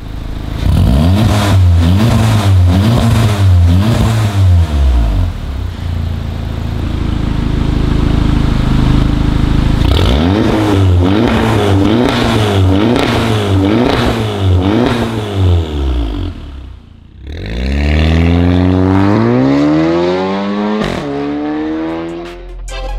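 Audi TT Mk3 turbocharged four-cylinder engine revving through a Fi Exhaust valved catback with the valve open and a catless downpipe. It gives a run of quick rev blips, holds steadier revs for a few seconds, then blips again. Near the end comes one long, smooth climb in revs.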